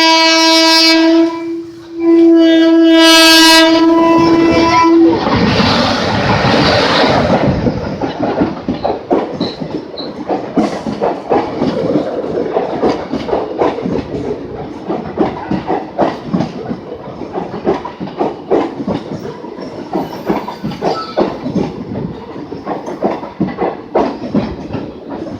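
WAG-5P electric locomotive's horn sounds two long blasts at the same pitch. The first ends about a second in; the second runs from about 2 to 5 seconds. The passenger train then runs past, with a loud rush as the locomotive goes by and the coach wheels clattering rhythmically over the rail joints.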